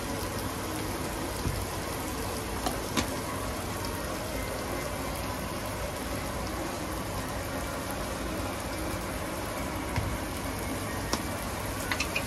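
Curry masala frying in oil in a pan: a steady sizzle with a few short, sharp clicks.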